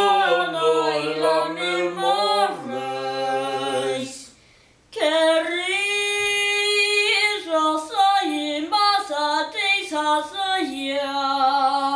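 A boy singing cantorial chant (chazzanut) unaccompanied, with his father's low voice holding sustained drone notes beneath him for the first four seconds. After a short pause the boy sings alone, holding a long note and then breaking into quick ornamented runs.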